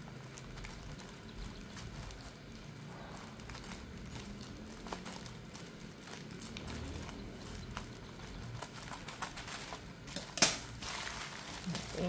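Scissors snipping through a plastic mailer bag, with small clicks and crinkles of the plastic. About ten seconds in comes one sharp, loud clack, followed by the plastic bag rustling and crinkling as it is pulled open.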